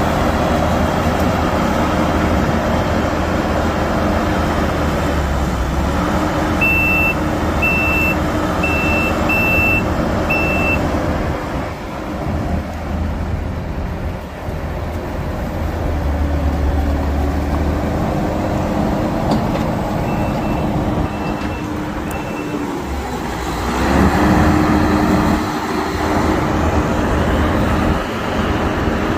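Diesel engine of a tracked skid steer working under load, its revs rising and holding in several stretches, with a backup alarm beeping in two short runs, five beeps and later three.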